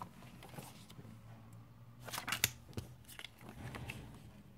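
Clear acrylic stamps and their plastic sheets being handled: a quick run of light clicks and plastic crinkles about two seconds in, then a few softer ones.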